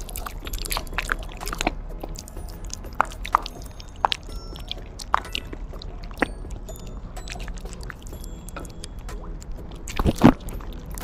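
A border collie eating chunks of raw meat off a glass plate: wet licking, smacking and chewing clicks from its mouth, with a louder bite and chew near the end.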